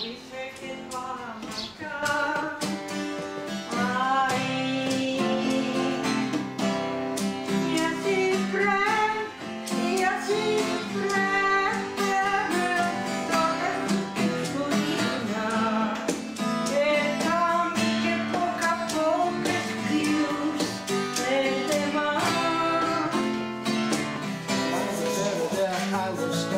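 Acoustic guitar strummed with a voice singing a folk song, quieter for the first two seconds and then full.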